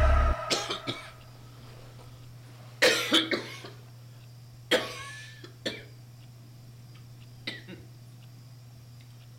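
A man coughing in several fits: a few coughs near the start, a harsh run of coughs about three seconds in, another near five seconds, and a weaker one about seven and a half seconds in.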